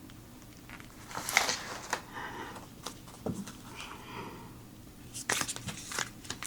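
Tarot cards being handled and shuffled: short papery riffles and light taps of the cards, loudest about a second in and again as a quick run of riffles near the end.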